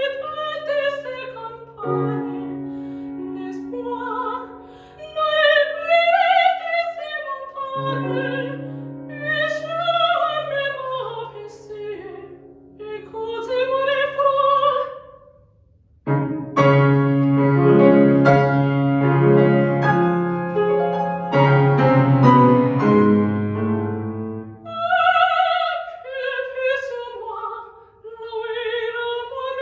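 Soprano singing an operatic aria with wide vibrato over grand piano accompaniment. About halfway through the voice stops and the piano plays a loud solo passage for several seconds before the soprano comes back in.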